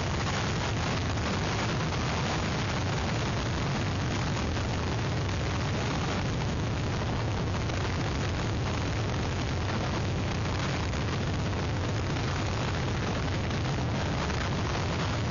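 Hurricane wind blowing across an outdoor webcam microphone: a steady rushing noise with a heavy low rumble from the wind buffeting the mic.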